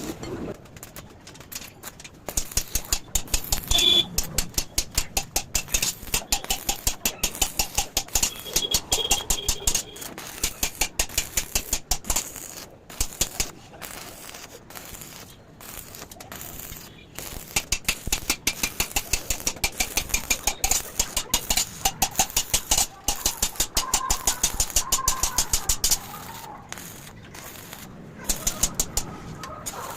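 Rapid metal-on-metal tapping on iron bars in bursts of several seconds, several sharp taps a second, with brief ringing tones now and then.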